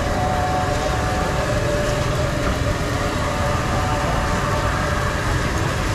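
Steady roar of a high-pressure gas wok burner.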